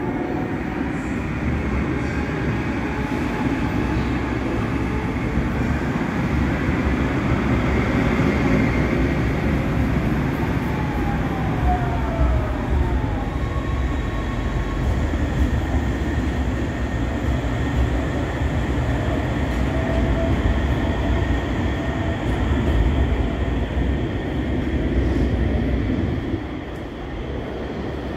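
Cologne KVB light-rail trains running through an underground station: a steady low rumble of steel wheels on rail, with falling electric-motor whines about ten to thirteen seconds in as a train brakes. The rumble eases near the end as the train comes to a stop at the platform.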